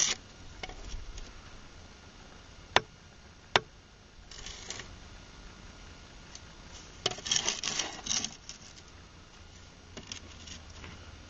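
A hammer tapping a freshly laid concrete block to settle it level in its mortar bed: three sharp taps in the first four seconds, then short bouts of scraping and rubbing as a spirit level is set and shifted on the block.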